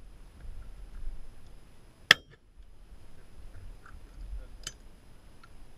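A single shotgun shot about two seconds in, sharp and brief, over a low wind rumble on the microphone. A much fainter crack follows about two and a half seconds later.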